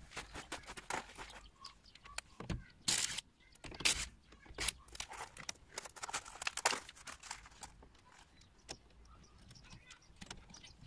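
Footsteps crunching on gravel, then scattered clinks, knocks and scuffs of hand tools and wheel bolts being handled on the ground.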